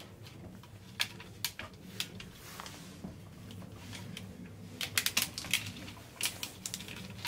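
Scattered light clicks and knocks of hard plastic being handled, with a quick cluster of clicks about five seconds in: the stock plastic fan shroud of a Can-Am Maverick X3 being worked up and out from behind the radiator.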